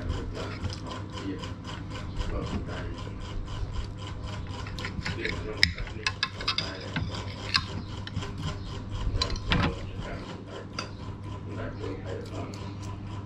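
Metal spoons scraping and clinking against a ceramic plate and a steel bowl as children eat, with a few louder clinks around the middle, over a steady low hum.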